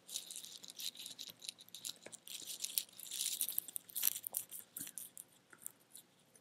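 Typing on a computer keyboard: quick, irregular key clicks as an email address is entered, thinning out near the end.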